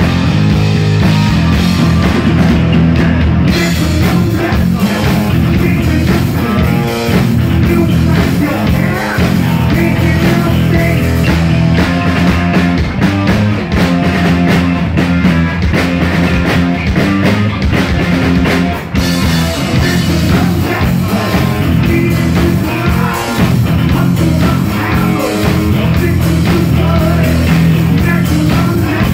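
Live heavy metal band playing loud, with distorted electric guitar over bass and drums, heard through a smartphone's microphone.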